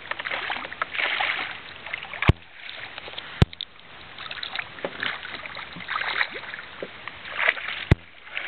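Hooked smallmouth bass splashing at the surface beside the boat as it is brought in, in repeated bursts of splashing. Three sharp knocks stand out, about two seconds in, a second later, and near the end.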